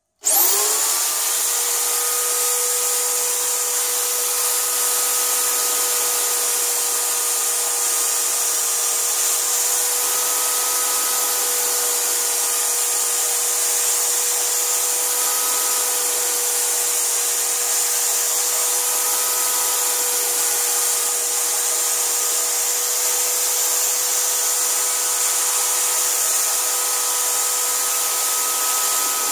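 Electric drill spinning a 120-grit abrasive polishing brush. It starts with a quick rising whine, then runs steadily while the brush deburrs and polishes a sharpened cleaver's edge.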